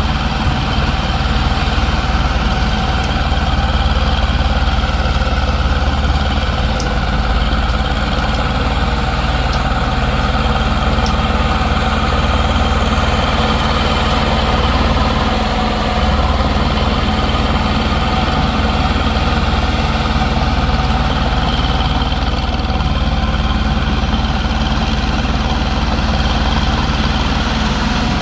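Diesel engine of heavy earthmoving equipment running steadily at an even speed, with no revving.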